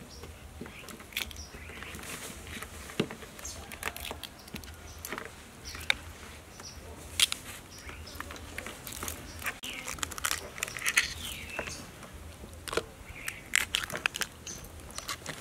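Cooked blue crabs being broken apart by hand on a wooden board: shells and legs crack and snap in irregular crisp clicks, a few of them loud, over a low steady hum.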